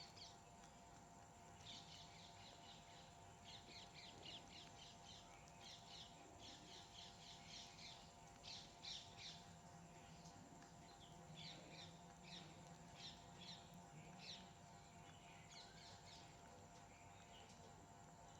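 Faint chirping of small birds: quick runs of short, high notes coming in clusters, stopping before the end, over a faint steady hum.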